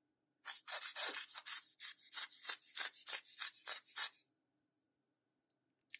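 A dozen or so quick scraping strokes, about three a second, which start half a second in and stop after about four seconds.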